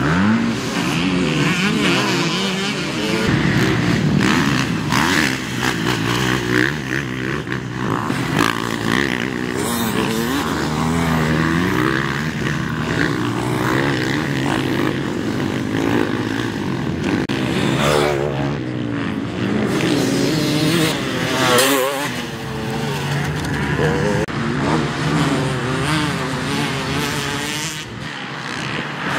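Motocross bike engines racing, revving up and falling off continuously as the bikes work the track.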